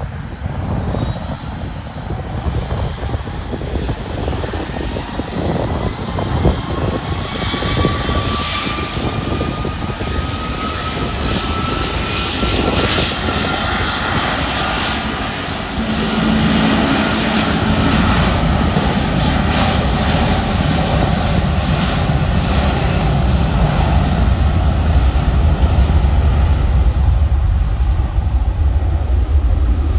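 Jet engines of an Airbus A330-243 airliner, Rolls-Royce Trent 700s, passing close. A whine climbs steadily in pitch over the first half. Then a deep rumble builds and stays loud to the end.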